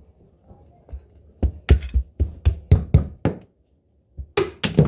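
A fast run of about eight sharp knocks, roughly four a second, as a toy doll is banged against the dollhouse. After a short break, more knocks come near the end.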